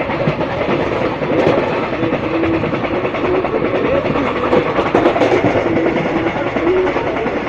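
Amaravati Express passenger train running along the track: its coaches rattle steadily over the rails.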